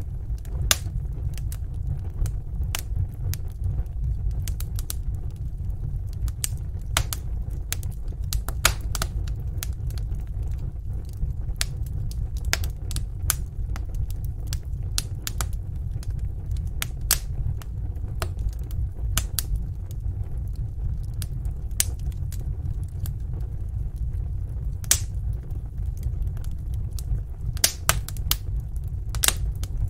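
Wood fire crackling: frequent sharp, irregular pops and snaps over a steady low rumble of the burning.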